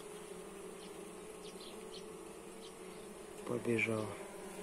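Steady hum of a honeybee swarm crowded on a comb frame, holding one low pitch.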